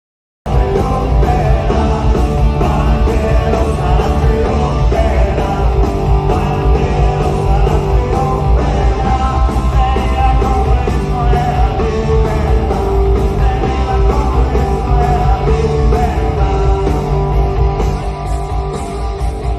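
Loud rock music with a singing voice and a heavy steady beat, starting abruptly about half a second in after digital silence.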